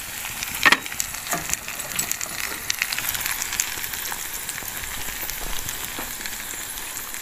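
Eggs sizzling and crackling in a steel frying pan, a dense patter of tiny pops, with one sharp click a little under a second in.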